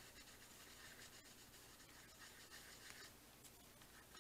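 Near silence, with faint rubbing of paper as a page and its fabric hinge tabs are handled and pressed down.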